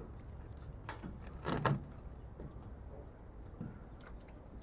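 Knife scraping scales off pieces of fish and knocking on a wooden plank: a few short scrapes and taps, the loudest about a second and a half in, over a low steady hum.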